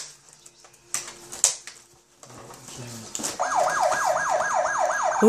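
A toy's electronic siren sound, a fast yelp with about five up-and-down pitch sweeps a second, starting a little past halfway. Before it, a few sharp clicks and rustles of the cardboard packaging being pulled apart.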